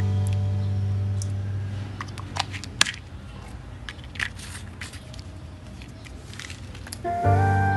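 Guitar music fading out, then a few sharp clicks and small rattles from a plastic pill bottle being handled and its screw cap twisted. Flute music comes in near the end.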